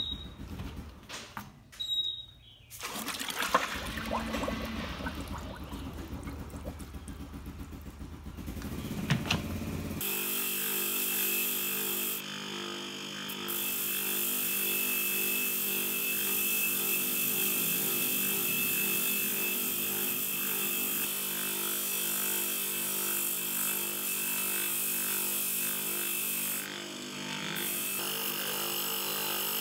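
Clinks and splashing of a part being handled in a tub of liquid, then, from about ten seconds in, a motor-driven wire wheel running steadily while it scours rust off a Honda GX160 engine part held against it. The scratching drops out briefly twice as the part is lifted away.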